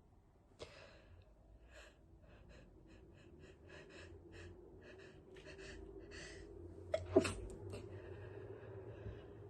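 A person's stifled sneeze about seven seconds in, the loudest sound, held back to keep quiet. It follows a run of short, quick sounds in the seconds before, with a sharp lone sound near the start.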